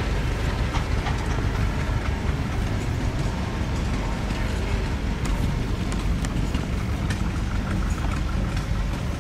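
The engine of a 1938 Sears Economy tractor running steadily, heard close up, with a rapid, even low pulse.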